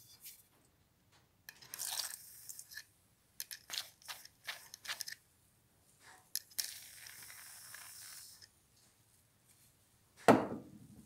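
WD-40 aerosol can spraying through its straw nozzle into a padlock: a short hiss, a run of small clicks, then a longer hiss of a couple of seconds. Near the end a single loud thump.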